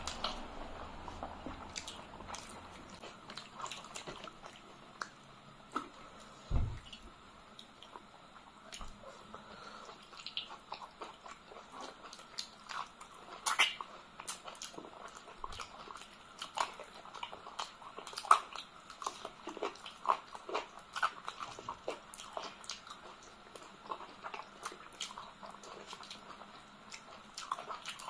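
Close-miked eating sounds of two people eating rice and curry by hand: chewing, lip smacks and wet mouth clicks at an irregular pace, with a few louder smacks standing out.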